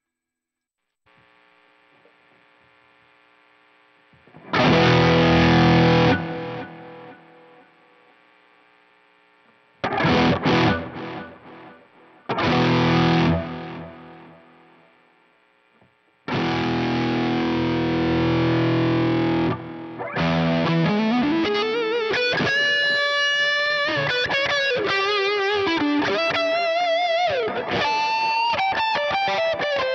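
Distorted electric guitar fitted with Artec pickups. Three ringing chords are struck and left to die away, then a chord is held for a few seconds. It moves into a single-note lead with a rising slide, bends and vibrato. A faint amp hum sits under the gaps between chords.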